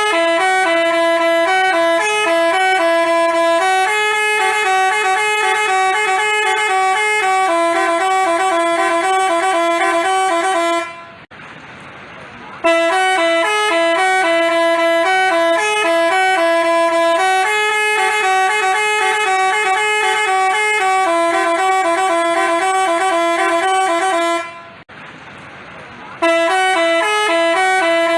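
Basuri telolet bus horn playing a multi-note melody of short, stepping horn tones. The tune breaks off twice for about a second and a half and starts over.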